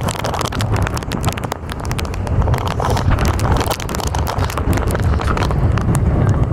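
Strong wind buffeting the phone's microphone: a loud, uneven low rumble that swells and falls, with dense irregular crackling and tapping over it.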